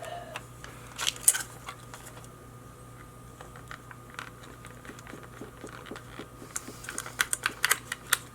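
Small plastic clicks from a spider security tag's ratchet mechanism being worked by hand: a short run about a second in and a longer, faster run near the end.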